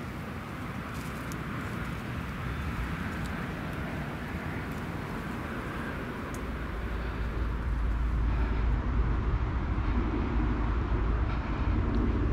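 Outdoor lakeside ambience: a steady hiss, then wind buffeting the microphone with a low rumble from about halfway through.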